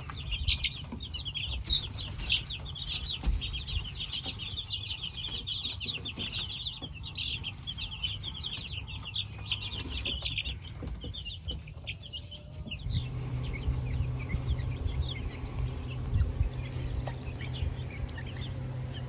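Young chickens peeping and clucking in a dense run of short high chirps that thins out about halfway through. A steady low hum comes in after that.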